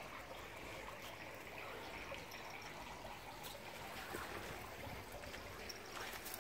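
Faint, steady outdoor background hiss, with a few soft ticks.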